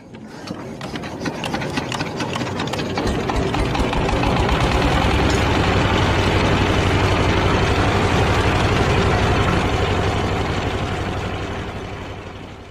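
Single-cylinder diesel engine on a grain thresher running just after a hand-crank start, with rapid, even firing. It grows louder over the first few seconds, runs steadily, then fades near the end.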